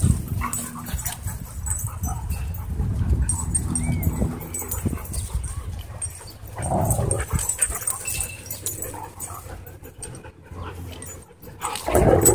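German Shorthaired Pointer and wolfdog play-fighting mouth to mouth, growling in rough bursts, loudest about halfway and again near the end.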